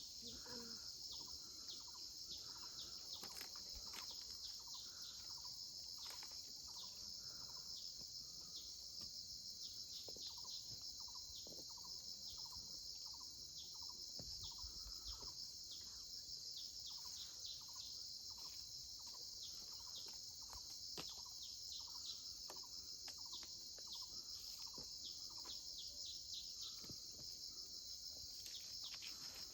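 Steady high-pitched chorus of insects, crickets or cicadas, with short bird chirps repeating throughout and scattered faint clicks.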